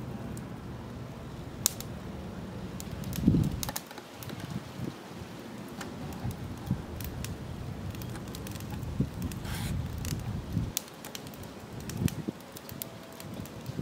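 Scattered small crackles and pops from hot lump charcoal under the turkey in a kettle grill, over a low rumble. There is a heavier thump about three seconds in.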